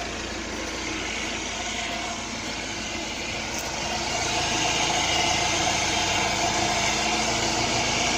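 A motor vehicle engine running steadily, getting louder about four seconds in.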